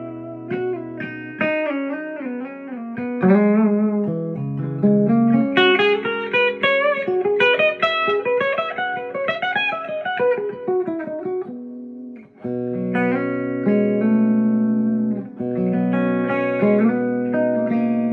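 Gibson Les Paul electric guitar with Bare Knuckle pickups being played: single-note lines with bends and vibrato, a quick run of notes up and down, then a short gap about twelve seconds in followed by held chords.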